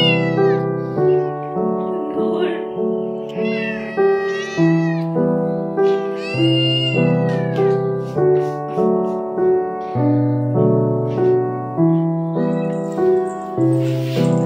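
Background piano music with a steady beat, over which a white Persian kitten meows several times, each call rising and falling, the longest about six to seven seconds in.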